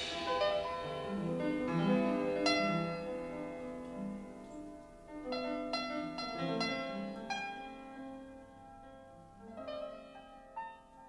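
Music: a piano playing slow, ringing notes and chords, fading away.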